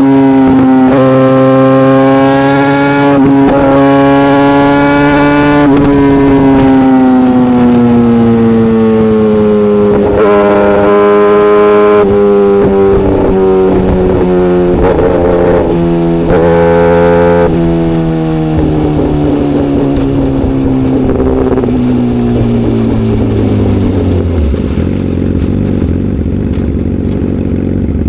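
Yamaha YZF-R6's inline-four through an SC Project exhaust, held at high revs with the pitch slowly sinking and a few short throttle surges. Near the end it winds down to a low, steady idle.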